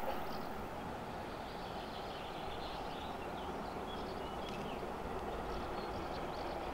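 An LNER B1 4-6-0 steam locomotive approaching at speed from a distance, a low rumble slowly growing louder, with small birds chirping faintly a few times.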